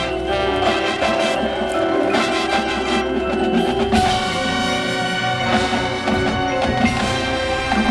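Marching band playing, with the front ensemble's mallet percussion (marimba, xylophone and bell-like tones) prominent over sustained wind chords.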